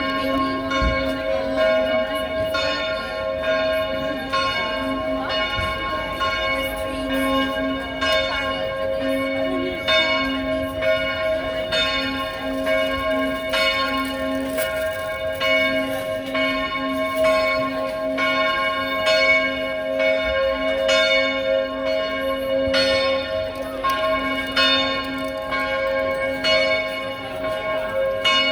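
A single church bell in a small tower ringing steadily. It is struck over and over at an even pace, and each strike's ring hangs on into the next.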